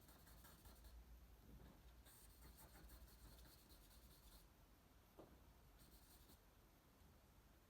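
Faint scratching of charcoal on paper as short scribbled strokes are drawn, coming in a few spells with pauses between, the longest about two seconds.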